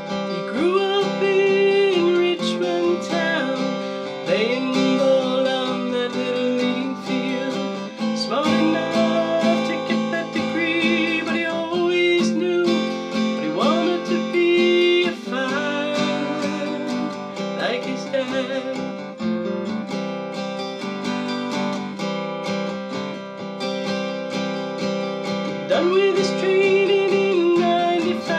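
Acoustic guitar strummed and picked as song accompaniment, steady throughout, with a voice singing long held notes over it in places.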